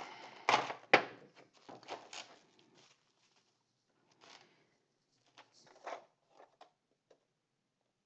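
Bubble wrap rustling and crinkling as it is pulled off a clear plastic keycap tray, loudest about a second in, then a few light plastic clicks and taps as the bare tray is handled.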